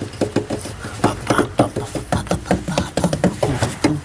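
Rapid, irregular clicking and knocking of hand tools on metal, several clicks a second, as hardware is worked loose on the truck's ABS module.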